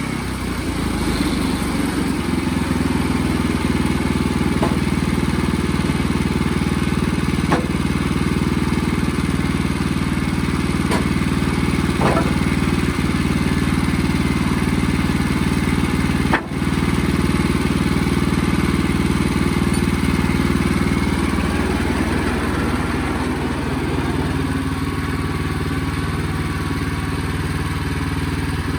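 Sawmill engine running steadily, with a few light clicks over it; its note shifts lower-pitched components up a little about three-quarters of the way through.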